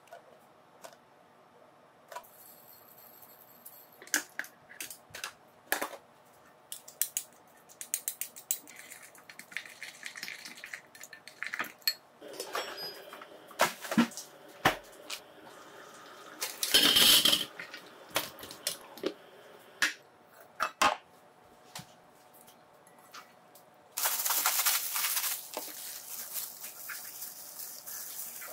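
Kitchen food-prep sounds: a metal spoon clinking and scraping against a glass bowl as a sauce is mixed, with scattered taps and clatter of utensils and containers. Near the end there is a louder, continuous rushing noise.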